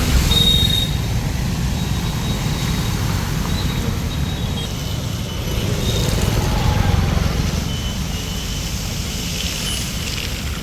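Road traffic on a city street: a steady engine and tyre rumble, swelling as a vehicle passes about six seconds in.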